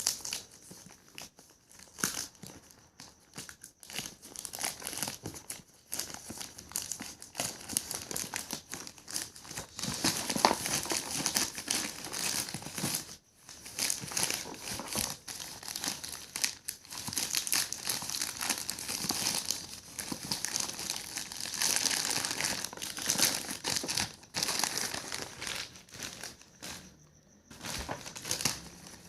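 Packaging crinkling and rustling as a parcel is handled and opened, in irregular bursts of crackle with brief pauses.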